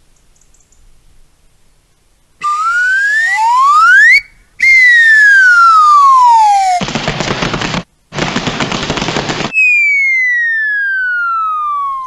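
Cartoon whistle sound effects: a rising whistle glide about two seconds in, then a long falling whistle, two stretches of rushing noise, and another long, slow falling whistle like a falling bomb.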